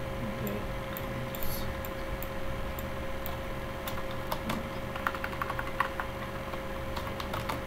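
Typing on a computer keyboard: scattered key clicks, coming quicker in the second half, over a steady electrical hum.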